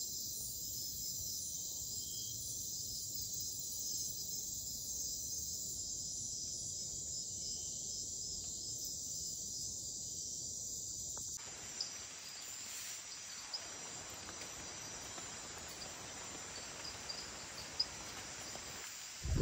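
Rainforest insect chorus at night: crickets and other insects trilling steadily at a high pitch, the highest voice pulsing slowly. About eleven seconds in, the chorus changes abruptly to a different mix, with a few faint ticks.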